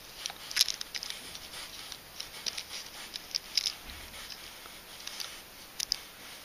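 Rubber cement being dabbed and spread from the tube's nozzle onto a rubber repair patch: an irregular scatter of light clicks and ticks.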